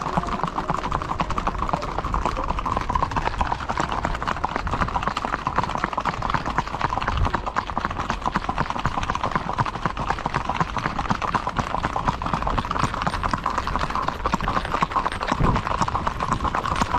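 Horse hooves clip-clopping in a quick, steady, dense patter of hoofbeats.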